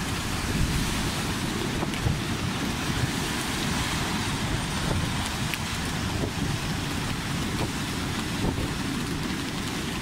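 Storm surf breaking and washing over a stony beach, a steady roar of foaming water, with strong wind buffeting the microphone.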